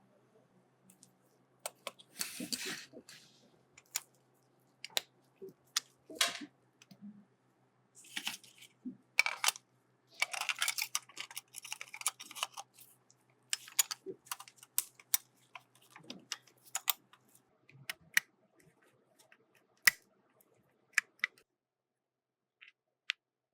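Small clicks, taps and short scraping sounds of hand work on a diecast model car, over a faint steady hum that stops near the end.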